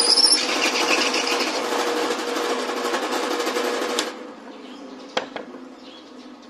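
Pedestal drill press running, its twist bit cutting a hole through a flat steel bar with a loud grinding screech over the steady motor hum. About four seconds in the cutting stops and the drill runs on more quietly, with a single short knock a second later.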